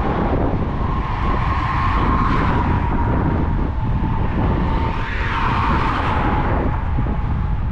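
Apollo Go electric scooter's motor whining steadily while riding, a high tone that sags slightly in pitch and swells briefly about five seconds in, over heavy wind buffeting on the microphone.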